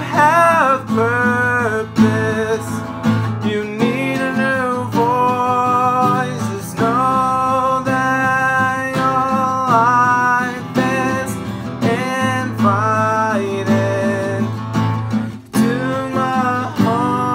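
A man singing long held notes that bend in pitch, over a strummed acoustic guitar.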